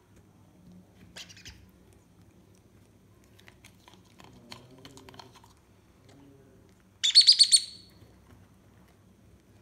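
African grey parrot chick giving food-begging calls: a faint short call about a second in, then a loud, rapid run of about six harsh high-pitched pulses near the end.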